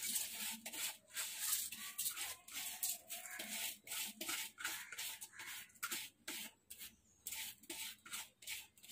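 Soaked rice being scraped by hand out of a plastic bowl into a pot of water: a run of short, irregular rubbing and splashing sounds, about two or three a second.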